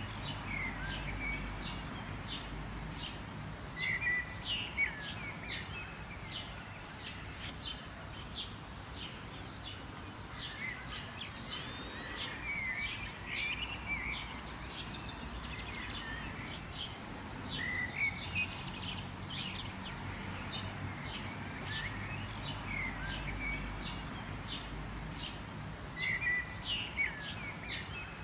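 Several songbirds chirping and singing, with many short, repeated calls and some warbled phrases over a low background rumble.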